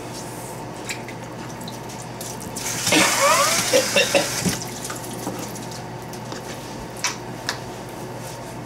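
Kitchen tap running into a stainless steel sink for about two seconds, starting about three seconds in. A couple of short sharp clicks follow near the end.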